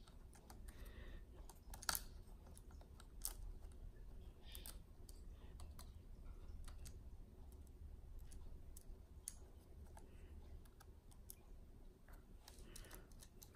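Faint, scattered clicks and light taps of small objects being handled, irregular and a second or more apart, over a low steady hum.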